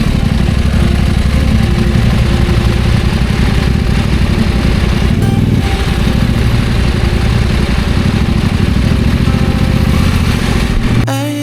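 Motorcycle engine running at low, fairly steady revs, loud and close, with faint music underneath. The engine sound cuts off near the end, giving way to guitar music.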